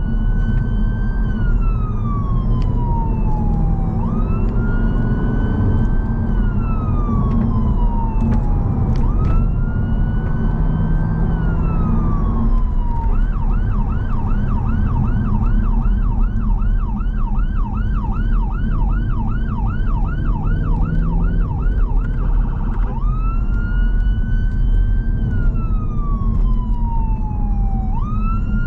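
Emergency response car's siren heard from inside the car over road and engine noise: a wail that rises quickly and falls over about three seconds, repeating. About halfway it switches to a fast yelp of roughly two to three sweeps a second, then a very brief faster warble, and goes back to the wail near the end.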